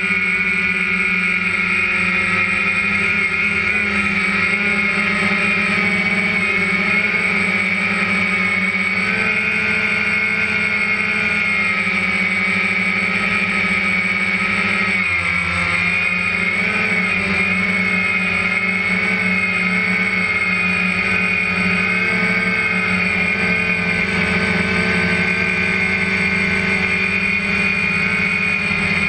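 DJI Phantom 1 quadcopter's motors and propellers whining steadily, heard from on board; the pitch shifts briefly about halfway through.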